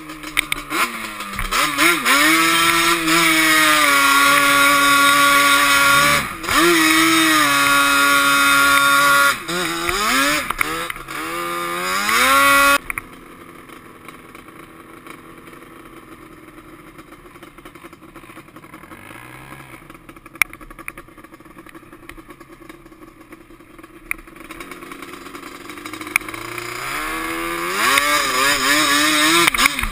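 Yamaha Banshee quad's two-stroke twin engine revving hard under throttle, its pitch climbing and falling as it accelerates and eases off. About thirteen seconds in the sound drops suddenly to a quiet low running, then builds back up to full revving near the end.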